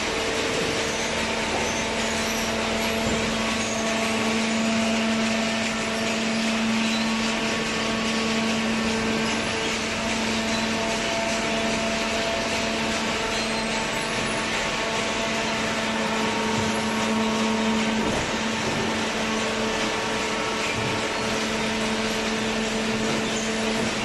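Hydraulic cardboard baler running: a steady machine hum with a constant low whine that dips briefly about eighteen seconds in.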